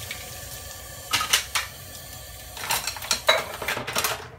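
Dishes and utensils clinking and clattering in a stainless steel sink and dish rack as they are washed and put away, with a cluster of clinks about a second in and a longer run of them near the end.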